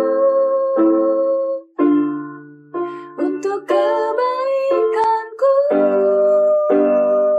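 Worship music: a sung melody held and sliding between notes over keyboard chords struck about once a second.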